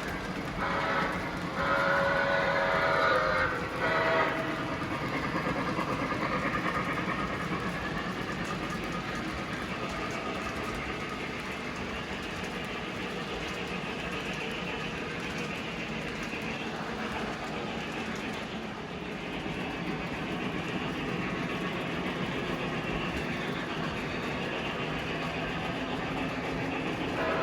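Model train locomotive sounding its horn in several short blasts over the first four seconds, then a steady running rumble along the track, with another horn note starting at the very end.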